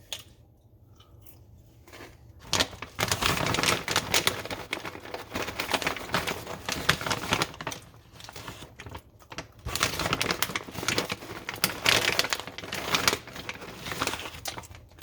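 Plastic snack bag crinkling as it is handled, in two long bouts: one starting a couple of seconds in and a second after a short pause.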